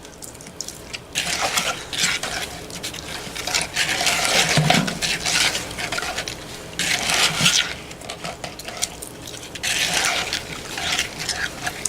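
Freshly made borax-and-glue slime being squished and swished around a bowl, wet squelching and scraping in irregular bursts a second or two long. It is soaking up the leftover water as it is worked.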